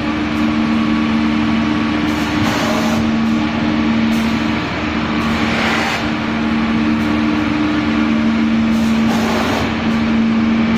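Automatic egg tray making machine line running: a steady machine hum with two droning tones, broken by short bursts of hiss every second or two.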